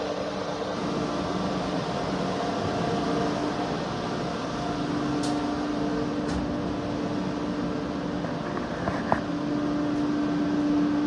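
Steady hum and fan whir of running variable-frequency inverters and their cooling fans. A low hum tone grows stronger about five seconds in and again near the end, with a few faint ticks and a light knock about nine seconds in.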